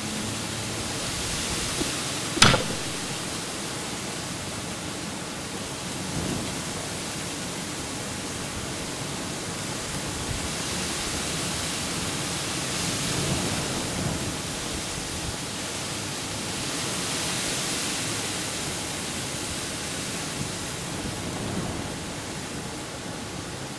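Wind blowing across an open field and buffeting the microphone: a steady rushing hiss that swells in gusts a few times. One sharp knock about two and a half seconds in is the loudest sound, with a few fainter thumps later.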